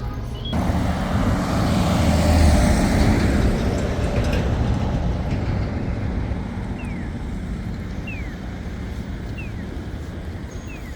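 Street traffic: a vehicle passing close, swelling to its loudest about two seconds in and easing off into steady road noise. Near the end a short falling chirp repeats about every second and a half.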